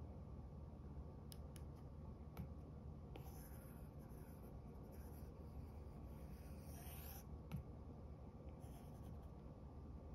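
Apple Pencil tip tapping and sliding on an iPad's glass screen, faint. A few light taps come first, then a scratchy stroke of about four seconds, a sharp tap, and a shorter stroke near the end.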